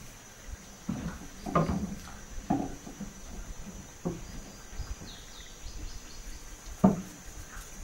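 Outdoor ambience with a steady high insect drone and a few faint bird chirps. Over it come irregular close scrapes and dull knocks, the loudest a sharp knock about seven seconds in.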